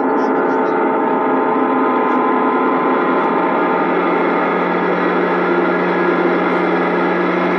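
A loud, steady drone of several tones held together, gong-like, that cuts in suddenly and holds without fading; its lowest tone grows stronger about five seconds in.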